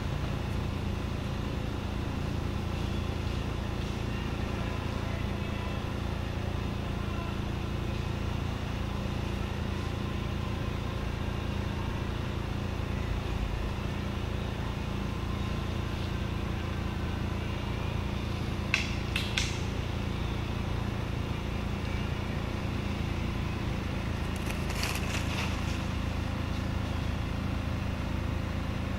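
A steady low mechanical hum, like an engine running, with a few brief sharp clicks about two-thirds of the way through and again near the end.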